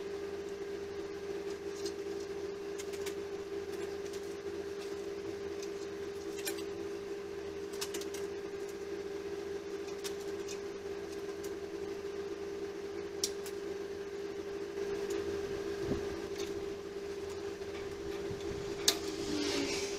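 Small metal clicks and taps of pliers working steel wire, scattered and irregular, the sharpest about a second before the end, over a steady low hum in a small room.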